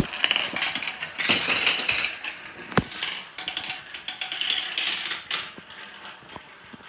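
Marbles clattering through a plastic marble-run track: a stream of rapid clicks and rattles, with one sharp click about three seconds in.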